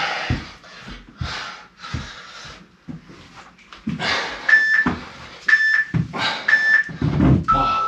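Workout interval timer beeping: three short beeps about a second apart, then a longer, lower beep that marks the end of the interval. Before and under it comes a person's hard breathing from exertion.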